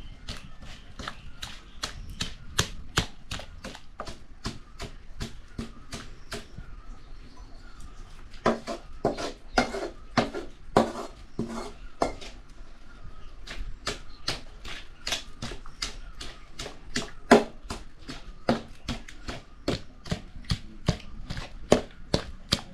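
Knife chopping vegetables on a board: a quick, steady run of sharp chops, a few a second, with harder strokes about a third of the way in and again about three-quarters in.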